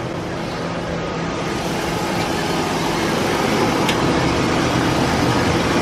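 BMW E46 engine idling steadily, just started for the first time after sitting about two months; it gets slightly louder toward the end.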